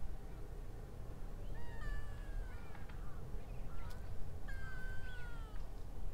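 Cat meowing twice, two drawn-out high calls that hold and then drop in pitch, the second about three seconds after the first, over a steady low background rumble.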